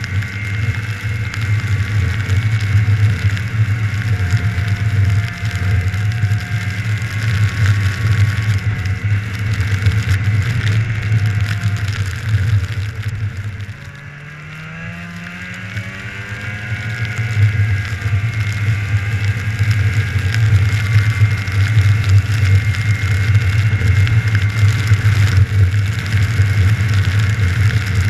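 Snowmobile engine running steadily under throttle. About halfway through it eases off briefly and drops in level, then the pitch rises as it speeds back up.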